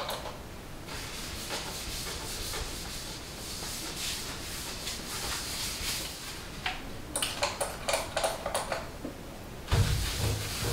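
Paper towel rubbing and wiping across a stainless-steel range hood, with a quick run of short sharp scuffs about seven seconds in and a deeper, louder rubbing near the end.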